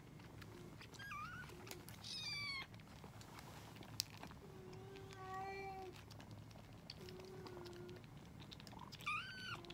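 Kittens mewing during bottle-feeding: a few high, wavering mews, about a second in, around two seconds in and again near the end, between lower drawn-out cries. Small clicks run throughout, the sharpest about four seconds in.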